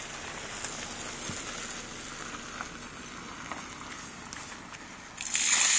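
Water gushing out of a leaky wader boot and splashing onto gravel, starting suddenly near the end as a loud hiss; before it, faint rustling as the boot is worked off the foot. The boot has filled with water through a leak.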